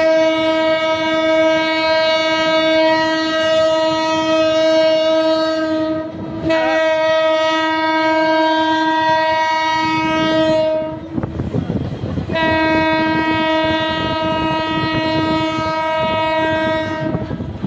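Diesel locomotive air horn sounding three long, steady blasts of several seconds each. In the short gaps between blasts the rumble and wheel clatter of the trains comes through.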